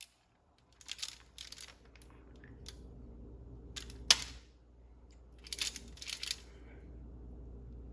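Close-miked crunching and chewing of crispy fried chicken wings, in crackly bursts, with one sharp, loud crunch about four seconds in.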